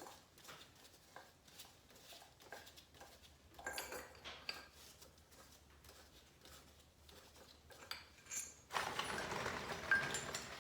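Metal tools and parts clinking and knocking as they are handled and set down: scattered light clicks, a burst of ringing clinks about four seconds in, then busier, louder rattling near the end.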